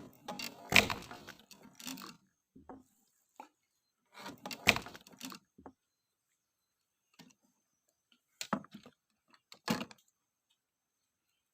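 Knocks, bumps and rattles of handling gear on a small fishing boat, in four short clusters with silence between.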